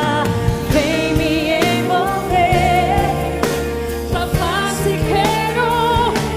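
Live contemporary Christian worship song: a sung lead melody with wide vibrato over a full band with sustained keyboard chords, bass and regular drum hits.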